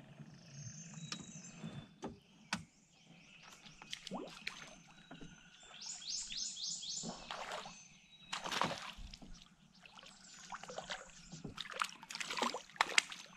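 Water sloshing and splashing with scattered sharp knocks, louder near the end; a bird calls a quick run of about five high notes around the middle.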